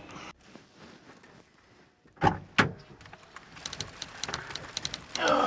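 Two heavy knocks about a third of a second apart, followed by a run of quick, irregular light clicks and taps, with a louder clatter near the end.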